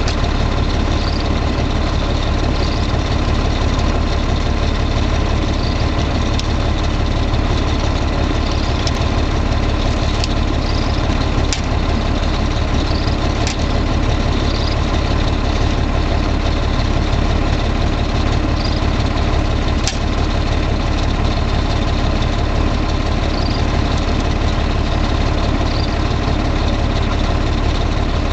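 RV engine idling steadily, heard from inside the cab, with the windshield wipers running. A few faint short sounds repeat every couple of seconds over the drone.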